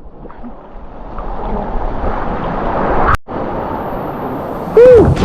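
Steady rush of waterfall water with wind on the microphone, broken off sharply about three seconds in. A short, loud whoop rising and falling in pitch comes near the end.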